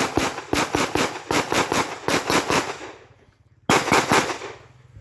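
Pistol shots fired in rapid strings during a timed IPSC Production-division stage, several shots close together, with a pause of under a second about 3 s in before a final quick burst.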